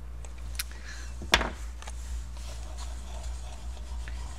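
A sharp knock about a second in as a chunky woody colour pencil is put down on the table, then the faint scratchy rubbing of another woody pencil being worked over painted paper.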